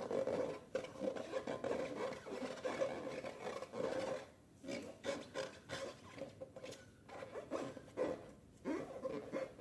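Slime being mixed and squished, giving irregular sticky rubbing and squelching sounds in uneven bursts, with brief pauses.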